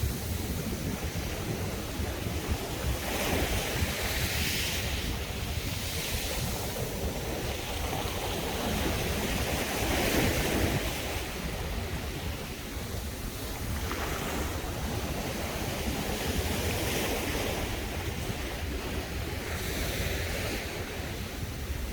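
Sea waves breaking and washing up a beach, the surf swelling in a hiss every several seconds, with a low wind rumble on the microphone underneath.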